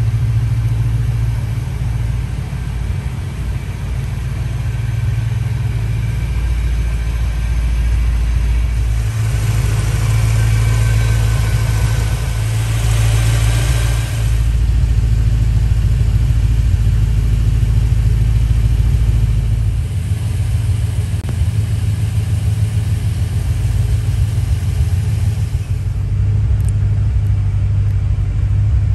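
MG RV8's 3.9-litre Rover V8 engine running at idle with a steady, deep rumble. About nine seconds in, a louder, brighter rush of noise joins it for about five seconds.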